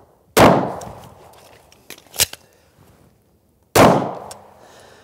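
Two shots from a Glock pistol about three and a half seconds apart, each followed by an echoing tail. Between them, about two seconds in, a few sharp clicks and a clack from a magazine change and the slide closing from slide lock.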